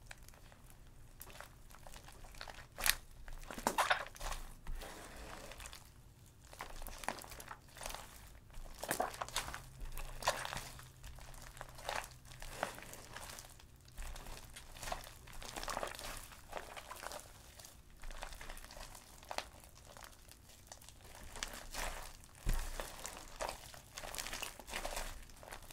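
Fluffy butter slime mixed with clay and shaving cream being kneaded, squeezed and pulled apart by hand: irregular sticky crackling and squishing, with a few sharper snaps, the loudest about three seconds in and again near the end.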